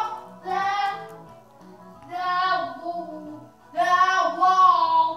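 A child singing a tune in drawn-out, wavering phrases, with faint music underneath.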